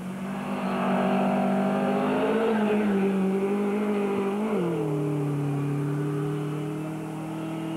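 Classic rally car's engine running hard as the car passes on a gravel stage. About four and a half seconds in the revs jump briefly, then drop and hold at a lower steady note.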